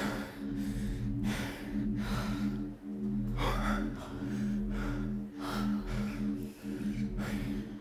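A woman panting hard, with rapid, heavy gasping breaths as she recovers from vigorous running in place. A steady low hum runs underneath.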